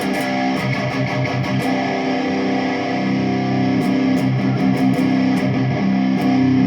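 Electric guitar, a Jackson Dinky, playing picked notes and held chords with its tone knob turned fully open and a 353J (0.035 µF) capacitor wired to the tone control. Sharp pick attacks come in quick runs near the start and again past the middle.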